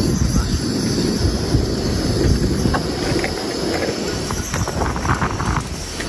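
Wind buffeting the microphone: a loud, uneven low rumble that rises and falls without any rhythm.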